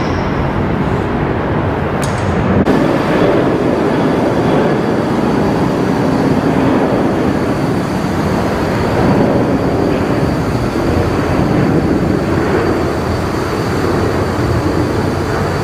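ACR Compact 14 electric scissor lift lowering its platform, with a steady mechanical running noise as the scissor arms fold down; this is a test of the lowering controls.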